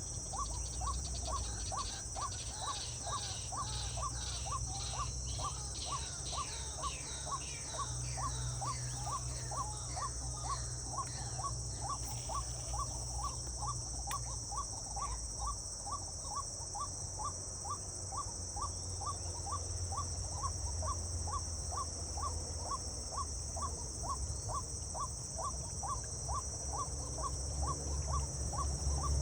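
Outdoor nature ambience: a steady high-pitched insect drone, with a bird repeating a short call about twice a second throughout. A run of higher repeated bird notes comes in the first dozen seconds, over a low rumble.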